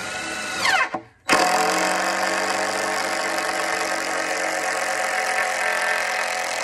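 A motor-driven machine starts abruptly about a second in and runs steadily at constant speed with an even hum and a hiss.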